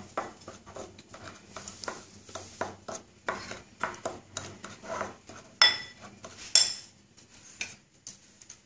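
Metal spoon stirring a dry mix of gram flour and rice flour in a bowl, with soft scraping and repeated light clicks against the bowl. Two louder, briefly ringing clinks come a little past halfway.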